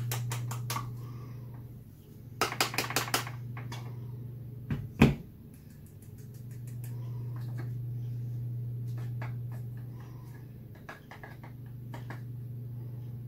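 Light tapping of a black container against a green plastic funnel over a small glass spice jar to knock celery powder through: a quick run of taps about two and a half seconds in, one sharper knock around five seconds, then scattered light clicks of the funnel on the jar, over a steady low hum.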